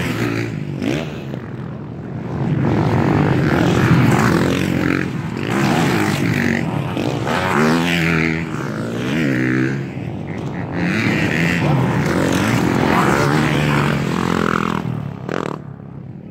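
Motocross bikes racing past one after another on a dirt track, their engines revving up and dropping back again and again as riders shift and take the jump, swelling and fading with each pass.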